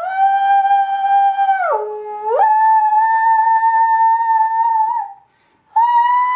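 Loud, steady high notes sounded into the pipe that drives a sugar-covered cymatics membrane: a held note, a brief drop to a lower note about two seconds in, a longer note a little higher, a short break near five seconds, then a slightly higher note.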